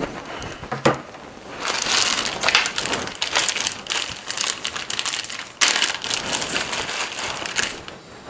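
Handling noise right at a small microphone hung from a belt loop: a single knock about a second in, then dense rustling, scraping and clicking in two long spells with a brief lull about two-thirds through.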